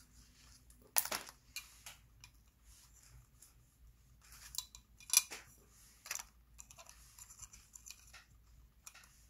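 Scattered small clicks and scrapes of a plastic LED light-bar lens and its circuit board and wires being handled, with the sharpest click about a second in and another about five seconds in.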